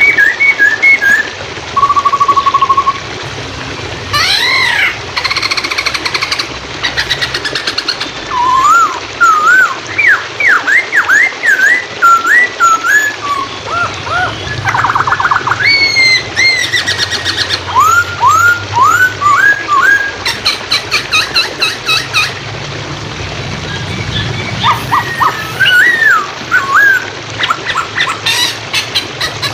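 Poksay Hongkong, a laughingthrush, singing a loud, varied song of slurred rising and falling whistles, a held whistled note and rapid rattling trills in quick succession, over a low steady background of running water.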